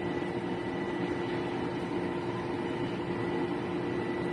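Espresso machine's pump running with a steady hum while a shot is being pulled.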